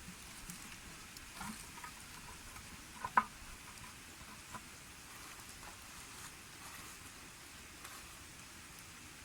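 Food frying with a steady sizzle, with a few light clicks and one sharper knock about three seconds in.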